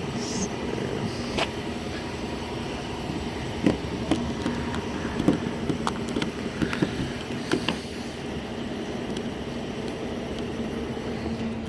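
Scattered clicks and knocks of a replacement exterior door handle being pushed and wiggled into a car door, over a steady low hum.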